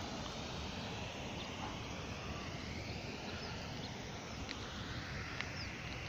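Steady rumbling wind noise on the microphone, with a few faint, short calls from a flock of birds flying overhead.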